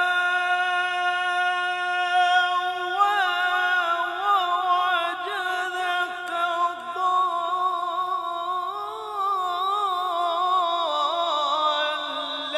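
A man's voice in melodic Quran recitation (tajweed). He holds one long steady note, breaks into wavering, ornamented runs about three seconds in, and settles on a lower held note near the end.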